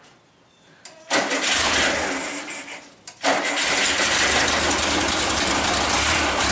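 1974 VW Super Beetle's air-cooled flat-four being started on the first tries after its rebuild: it fires about a second in, drops out briefly near three seconds, then catches again and keeps running on plenty of throttle.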